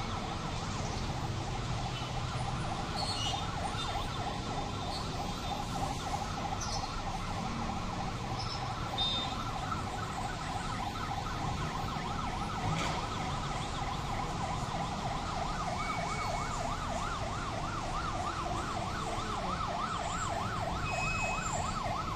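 An emergency siren in a fast yelp, its pitch sweeping up and down several times a second, sounding steadily and without a break.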